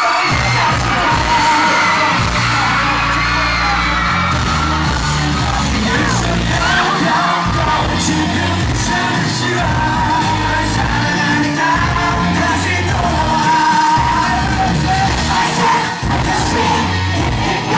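Live rock band playing, with a male lead vocalist singing into a microphone over electric guitar and a steady drum beat, loud and continuous. Shouted or screamed voices ride over the music.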